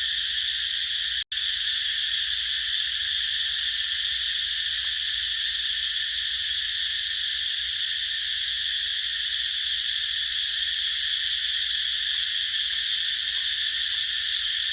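Cicadas chorusing: a continuous, even, high shrill drone, with a split-second drop-out about a second in.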